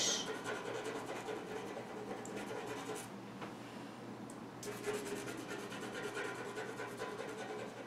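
Coloured pencil rubbing lightly on paper in quick back-and-forth strokes, laying down a smooth layer of background colour with hardly any pressure. The strokes stop for about a second and a half midway, then resume.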